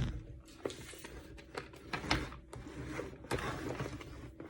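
Plastic toy case being handled and pried open by hand: irregular clicks, taps and short scraping rustles of plastic.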